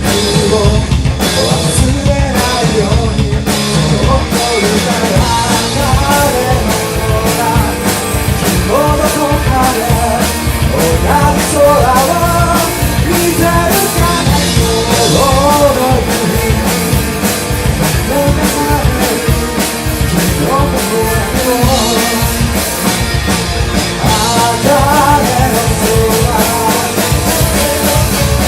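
Rock band playing, with a drum kit keeping the beat under a melodic line that sounds like singing.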